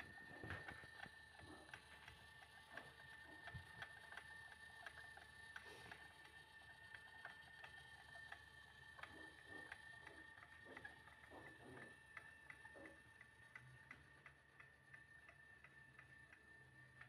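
Near silence: faint, fairly regular ticking, a couple of ticks a second, over a thin steady high whine.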